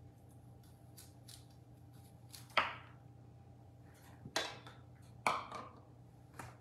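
Chef's knife cutting broccoli on a plastic cutting board: faint clicks and three sharper knocks of the blade on the board.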